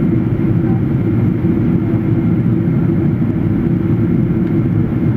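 Steady low roar of a Boeing 777 airliner in flight, its engines and airflow running evenly with no change in pitch.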